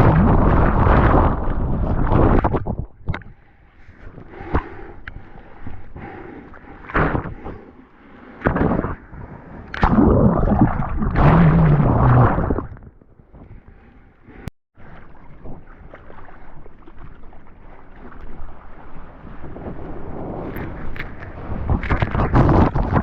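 Ocean water surging and splashing over the camera's microphone in the surf: loud rushing bursts, with quieter gurgling stretches between them.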